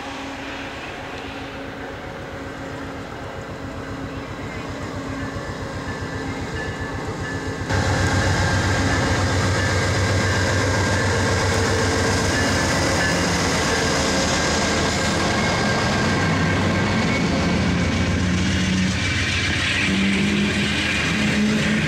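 VIA Rail passenger train led by a GE P42DC diesel-electric locomotive passing close. It grows louder over the first several seconds and jumps sharply louder about eight seconds in as the locomotive comes by. The passenger cars then roll past with a steady rumble of wheels on rail.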